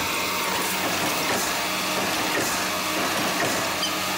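Automated side-loader garbage truck running steadily at idle while its hydraulic arm lifts and tips a wheeled trash cart.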